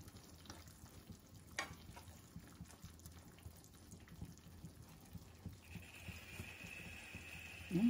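Creamy stew-and-béchamel sauce simmering faintly in a skillet on low heat, with soft crackling and a metal spoon stirring through it, and one light click about one and a half seconds in. A faint steady high tone comes in near the end.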